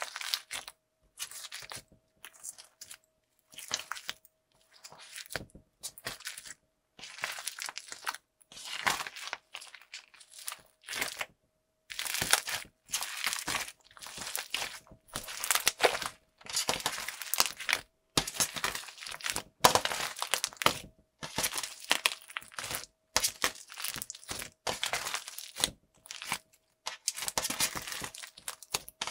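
Hands squeezing and kneading a large fluffy slime packed with foam beads and crunchy cubes, giving repeated bursts of crunchy crackling separated by short silent gaps. The squeezes come louder and closer together from about halfway through.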